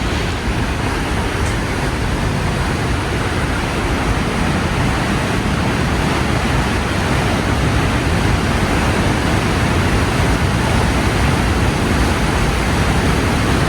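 Box Canyon Falls, a waterfall plunging into a narrow quartzite canyon: a loud, steady roar of falling water.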